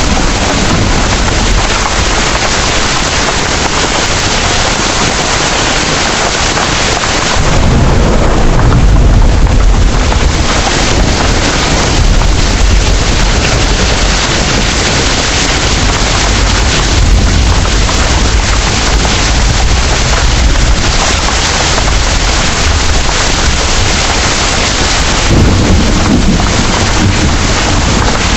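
Heavy rain pouring steadily, with thunder rumbling low several times; the strongest rumble swells up about a quarter of the way in and lasts a couple of seconds.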